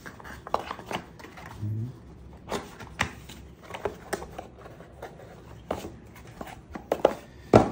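Small airsoft accessories being handled: irregular light clicks and knocks, the sharpest near the end.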